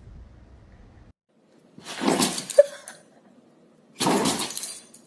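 A dog sneezing twice, two sharp bursts of breath about two seconds apart.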